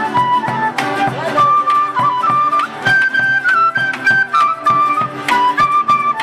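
Andean folk ensemble playing: a breathy flute melody moving in held notes over fast, steady strumming of charango and guitar with light percussion.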